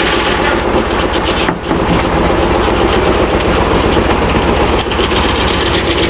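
Engine driving a flat-belt sawmill, running steadily with a rapid low pulsing, and a brief dip in the sound about a second and a half in.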